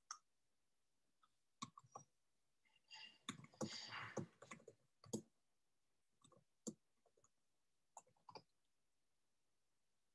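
Near silence broken by faint scattered clicks, with a denser run of clicks and taps about three to five seconds in.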